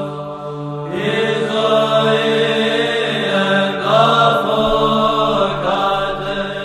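Chanted vocal music over a steady, low held drone, the melody moving above it in phrases, a new phrase beginning about a second in.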